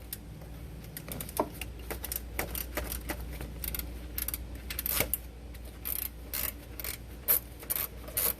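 Hand ratchet clicking in short, irregular strokes with metal tool clinks, working an E-Torx socket on an alternator mounting bolt.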